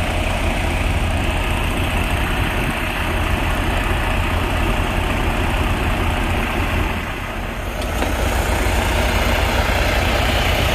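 Semi truck's diesel engine idling steadily, heard close by, with a short dip in loudness about seven seconds in.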